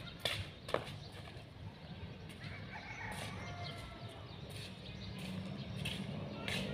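Footsteps of a man in slippers slapping on a tiled rooftop floor: a series of sharp slaps, two close together in the first second, then sparser.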